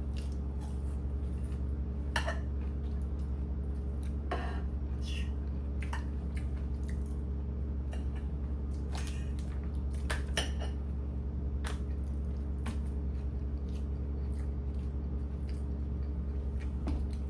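Scattered clinks and knocks of kitchen dishes and utensils being handled, a dozen or so separate strikes, over a steady low hum.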